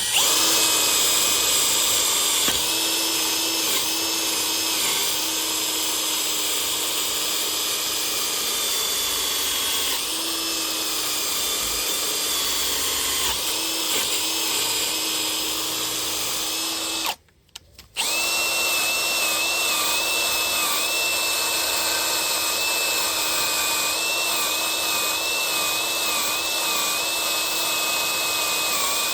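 Electric drill spinning a wire brush to scrub brake parts clean, its motor tone wavering slightly as the brush is pressed on. It stops for about a second a little past the middle, then runs again.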